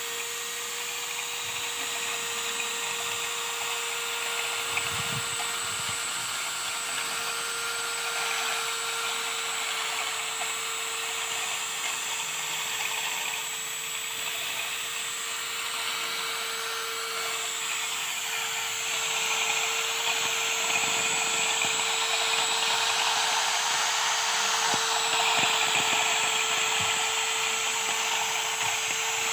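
Electric drill running steadily with a steady motor whine as it spins a disc blade into lawn grass as a homemade grass cutter. It gets a little louder about two-thirds of the way through.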